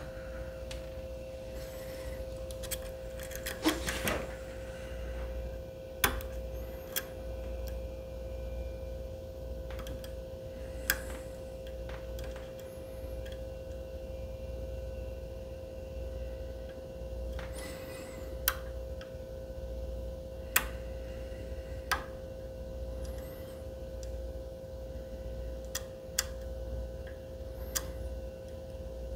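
Lock pick and tension wrench working the pins of a Medeco lock cylinder: scattered sharp metallic clicks at irregular intervals, over a steady hum.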